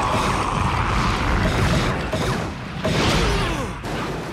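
Sci-fi cartoon battle sound effects: dense, noisy blasts and mechanical whirring, with sharp hits at about three seconds and near four seconds.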